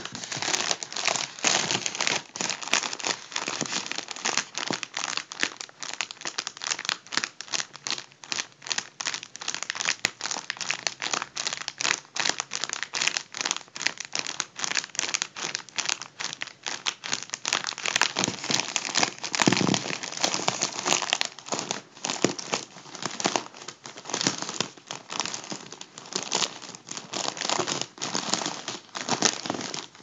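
A deflated gold foil balloon crinkled and crumpled between the fingers: a dense, irregular crackling that never stops.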